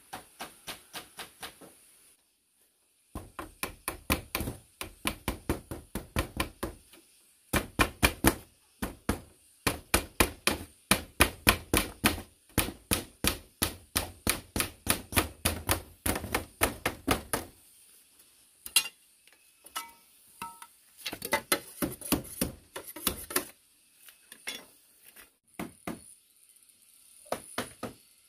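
Fast, rhythmic blows of a hand tool on wood or bamboo, about four strikes a second, in long runs with short breaks, then in shorter, sparser clusters over the last ten seconds.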